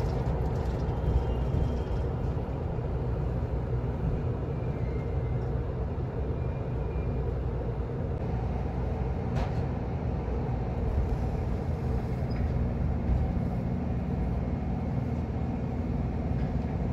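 Steady running noise heard inside the carriage of a former JR East 253 series electric train (Nagano Electric Railway 2100 series), a low rumble with a faint steady hum as it rolls slowly past a station platform.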